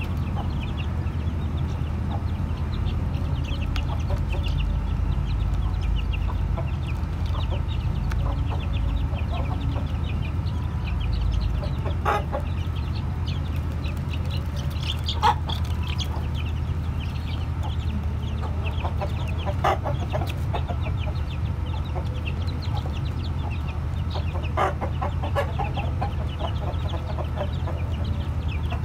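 A flock of young chickens peeping constantly in short high chirps, with a louder single call now and then, over a steady low rumble.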